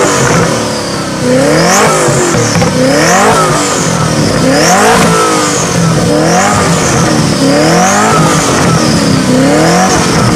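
Koenigsegg Agera's twin-turbocharged V8 being revved over and over, the pitch rising sharply and falling back about every second and a half.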